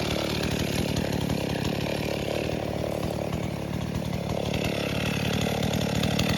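Chainsaw running steadily, its engine note easing slightly past the middle and picking up again near the end.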